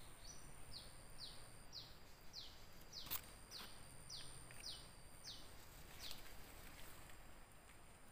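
Faint forest ambience: a run of short falling chirps, about two a second, that pause near the end, over a thin, high steady tone that comes and goes. There is a single sharp click about three seconds in.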